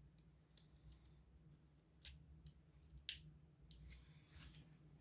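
Faint, scattered clicks of metal tweezers working against the small plastic and metal parts inside an opened Oculus Quest 2 headset, about five separate ticks, the loudest about three seconds in.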